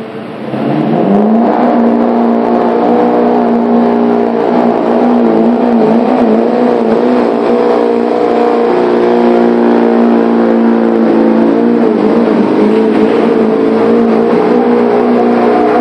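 Duramax V8 turbodiesel pickup engine revving up about a second in and then held at high rpm under heavy load as the truck drags a weight-transfer pulling sled, its pitch wavering slightly.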